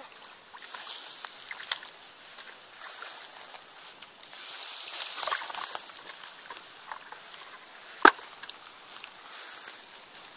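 Shallow muddy water sloshing and splashing as a person wades and gropes through it by hand, with small wet ticks and squelches throughout. There is a single sharp smack about eight seconds in.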